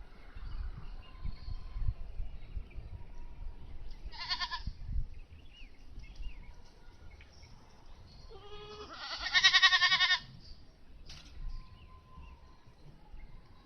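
Two wavering animal calls, a short one about four seconds in and a longer, louder one about nine seconds in, over a low rumble in the first few seconds.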